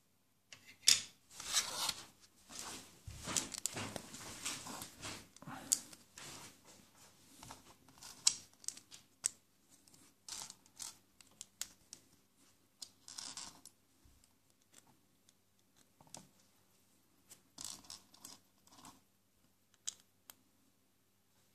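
Small plastic Lego pieces clicking, rattling and scraping against each other and a wooden tabletop as they are handled and pressed together, in irregular bursts of sharp clicks.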